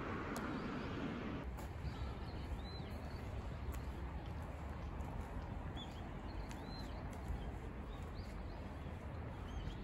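Small birds chirping now and then in short, arched calls, with faint footsteps on a paved path and a steady low rumble. For about the first second and a half, road traffic noise is heard, cut off abruptly.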